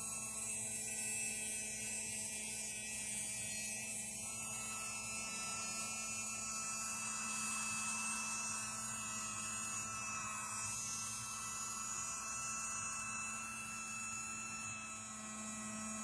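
USB-powered mini vacuum cleaner's small electric motor running steadily, a constant hum with a high whine.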